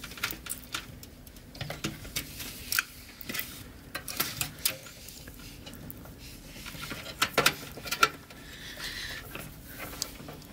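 Scattered clicks, taps and plastic knocks of a 24-pin ATX power cable being handled and pushed at a modular power supply's socket, the connector not yet going in. The loudest knocks come about seven to eight seconds in.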